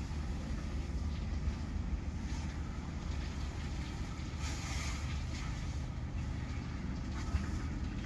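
Steady low rumble of wind buffeting the microphone, with a brief burst of hiss about halfway through.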